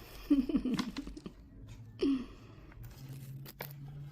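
Light rustling and crinkling with a few small clicks as small toy pieces are handled, with short bits of a child's voice about a third of a second in and again about two seconds in.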